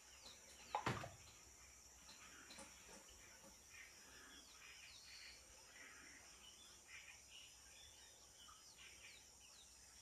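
Faint natural ambience: many small bird chirps and short calls over a steady high insect drone. About a second in, a sudden short double thump is the loudest sound.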